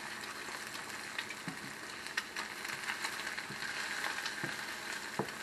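Eggs frying in oil in a skillet: a steady sizzle dotted with small pops and crackles.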